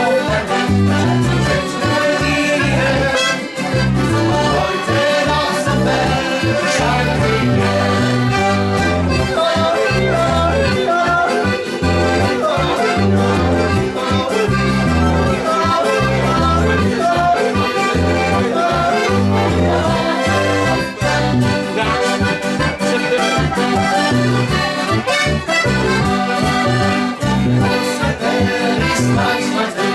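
Live Alpine folk-pop band music led by an accordion, over a bass that alternates between notes on a steady beat.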